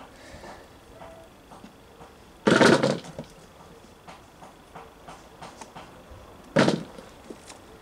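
Potatoes tossed into a plastic bowl, landing with two loud knocks, one about two and a half seconds in and one near the end, between soft rustling and scraping of hands digging through loose compost in a plastic tub.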